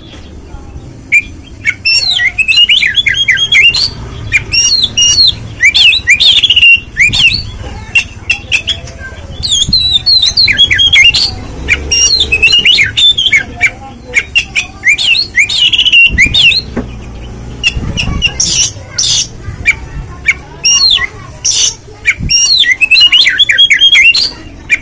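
Oriental magpie-robin (kacer) singing loudly in phrases of rapid, varied chirps and whistles, each lasting a few seconds and separated by short pauses, with some sharp high notes in the second half.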